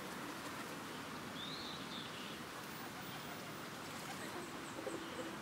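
Outdoor ambience: a steady background hiss with a single short bird call about a second and a half in. Near the end, a low cooing call begins.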